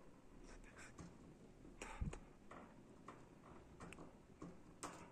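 Faint scattered clicks and scratches from a hamster clinging to the wire bars of its cage and reaching for a dry bagel ring, the clearest click about two seconds in.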